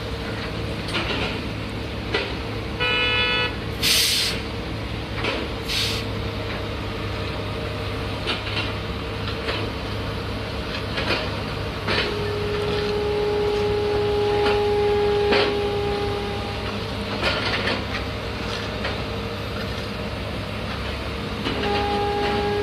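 Heavy road construction machinery running with a steady low hum and a few sharp clicks. About twelve seconds in, a horn sounds one long two-tone note for about four seconds, and another horn note starts near the end.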